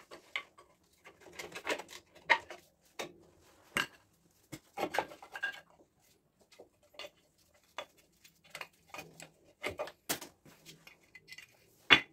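Irregular metallic clinks, scrapes and knocks as the brake shoes and their return springs are levered off a Land Rover Series 3 front drum-brake backplate, with a sharp knock about ten seconds in and another near the end.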